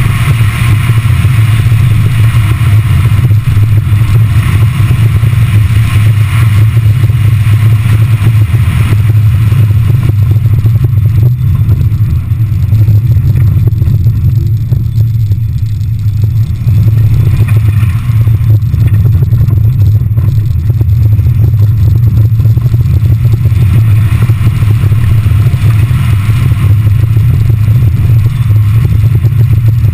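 Subaru Impreza GT flat-four boxer engine driven hard on a loose dirt and gravel course, with a loud steady low rumble and gravel clattering and scraping under the car. It eases off briefly about halfway through, then pulls hard again.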